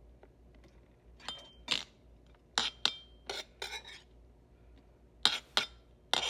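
A metal utensil clinking and scraping against a bowl in a series of short, sharp knocks, a couple of them ringing briefly, as chopped onions are scraped into the egg mixture.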